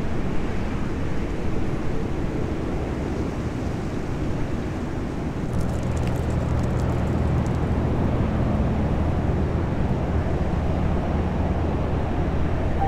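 A car driving, with steady road and engine noise; a low, even hum joins about five and a half seconds in.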